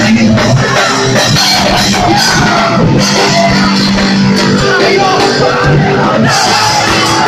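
A live rock band playing loud with shouted vocals, heard from inside a packed crowd.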